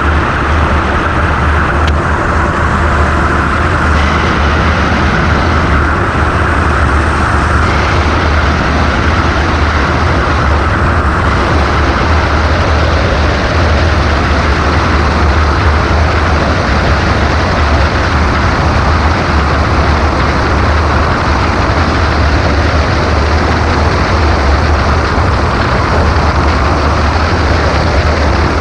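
Steady, loud wind rush and buffeting over the microphone of an ultralight trike gliding with its engine shut off.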